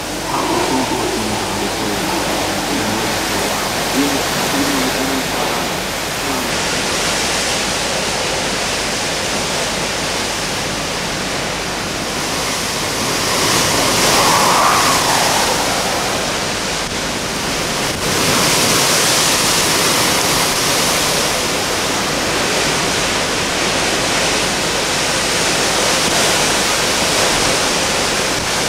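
Hurricane winds with driving rain: a loud, steady rush of noise that swells in gusts about 13 seconds in and again about 18 seconds in.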